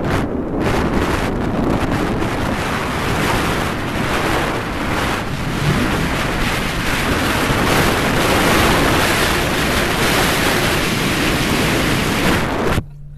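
Loud wind rushing and buffeting over a camera microphone held out the window of a moving car, a steady roar of noise that cuts off suddenly near the end.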